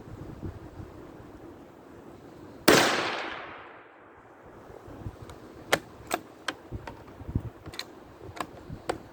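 A single shot from a Ruger American bolt-action rifle in .17 HMR, a sharp crack about a third of the way in that dies away over about a second. Several small clicks and ticks follow near the end, over steady wind noise.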